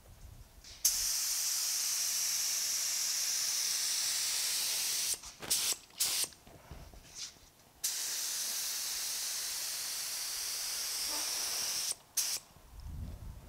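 Gravity-feed spray gun on compressed air spraying thin etching primer: two steady, high hissing passes of about four seconds each, with a few short trigger blips between them and near the end.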